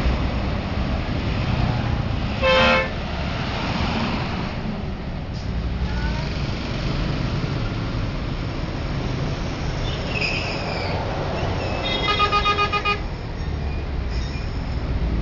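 Passing road traffic, with a bus horn giving a short, loud blast about two and a half seconds in. Near the end comes a quick run of rapid horn toots lasting about a second.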